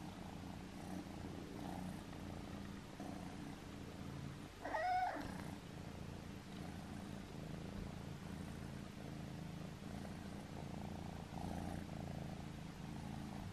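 Ragdoll kitten purring steadily, close up, while being stroked. One short higher-pitched sound about five seconds in stands out above the purr.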